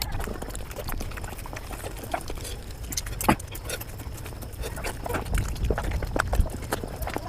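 Mukbang eating sounds played at five times normal speed: a rapid stream of chewing and mouth clicks and smacks, with a steady low rumble underneath.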